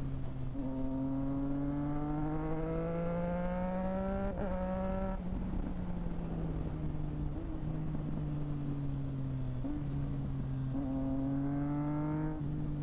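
Triumph Street Triple 765 RS's three-cylinder engine through a Delkevic aftermarket exhaust, under way on the road. The revs climb for about four seconds, then the note settles and falls slowly, with another short climb near the end.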